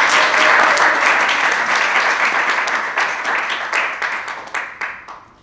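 Audience applauding: many hands clapping in a dense patter that thins out and dies away near the end.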